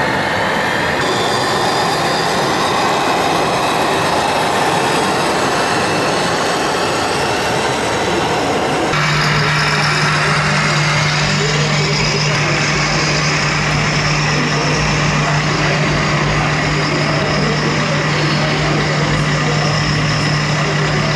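Radio-controlled scale model trucks running their electronic engine sound modules, a simulated diesel truck engine, with crowd voices in the background. About nine seconds in, the sound changes abruptly to a steady low engine hum.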